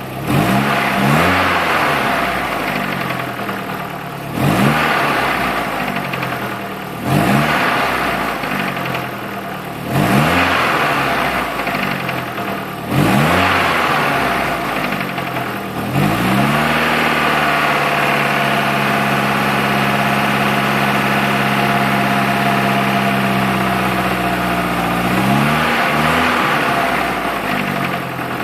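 Nissan S13 Silvia engine revved in quick blips about every three seconds, each rising sharply and falling back. It is then held at a steady higher speed for about eight seconds before dropping back and blipping once more near the end.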